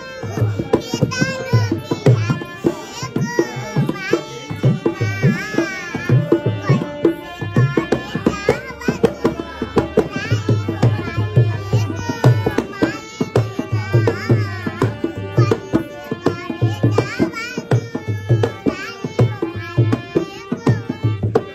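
Indian folk-style music: tabla playing a brisk, steady rhythm with deep bass strokes under a wavering melody line.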